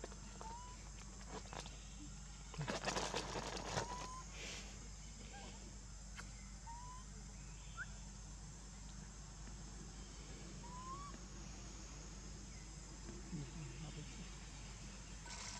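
Faint outdoor ambience: short rising chirping calls, about five spread through, and a burst of rustling and crackling about three seconds in, over a steady low hum.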